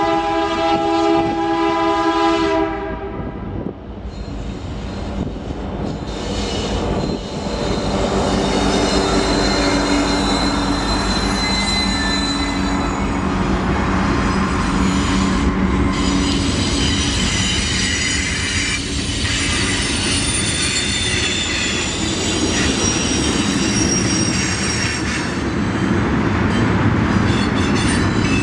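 Freight locomotive's horn sounding a chord for about three seconds, then cutting off. Freight cars then roll past close by, the wheels rumbling and the flanges squealing in high, wavering tones.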